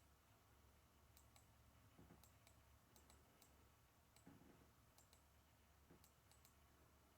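Near silence with about a dozen faint, sharp clicks at irregular intervals.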